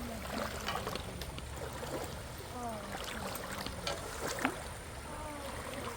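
Flowing creek water running and gurgling, with a few sharp splashes or knocks as someone wades across the stream.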